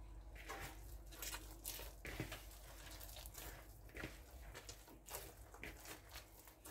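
Hands mixing and kneading pizza dough in a plastic bowl: faint, irregular soft squishing and patting.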